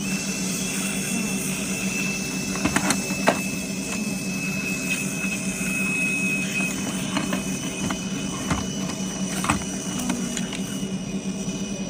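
Gas torch burning steadily with an even hum, heating gold jewelry and chain in a ceramic crucible to melt it down; a few faint clicks sound over it.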